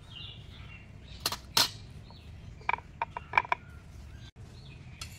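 Steel cooking utensils clinking and tapping: two sharp knocks just over a second in, then a quick run of short ringing metallic clinks about three seconds in.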